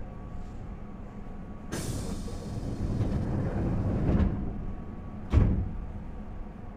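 Keihan 2200 series train's pneumatic doors closing at a station stop before departure: a sudden hiss of compressed air that fades over a couple of seconds, a knock, then a loud thump as the doors shut, over a low rumble.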